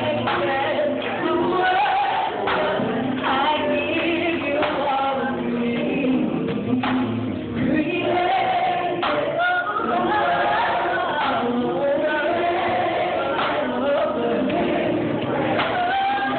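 Mixed gospel choir singing, men's and women's voices together, continuing without a break.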